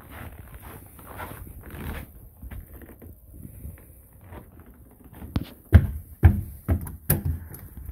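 Footsteps on a snow-dusted wooden porch deck, soft at first, then a handful of sharp clunks and clicks in the last couple of seconds.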